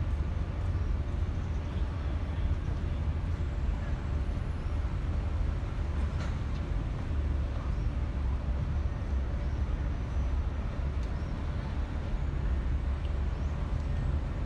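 Steady low rumble of outdoor background noise, with no clear single event standing out.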